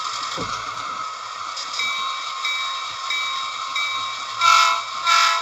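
Train sound effect: a steady steam hiss with a high ring repeating about every two-thirds of a second, then two short whistle blasts near the end.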